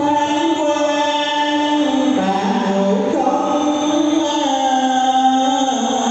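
Chanted recitation of Hòa Hảo scripture: a single voice sings in long held notes that step up and down in pitch.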